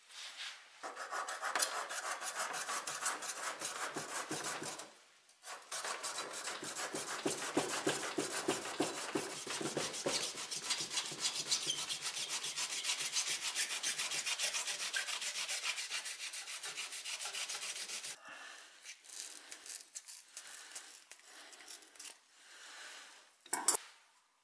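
Fine-toothed handsaw cutting through the tightly bound end of a bundle of tail hair: rapid scratchy saw strokes in two long stretches, broken by a short pause about five seconds in and stopping about eighteen seconds in. Then fainter scraping and handling, and a short knock near the end.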